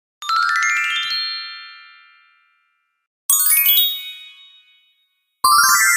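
Sparkle sound effects: three separate glittering chime cascades, each a quick run of many high bell-like tones that starts suddenly and rings out to a fade. The first comes just after the start, the second about halfway through, and the third near the end.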